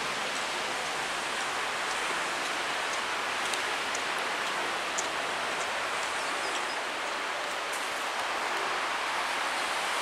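Steady, even hiss of street noise from a nearby road, with a few faint ticks.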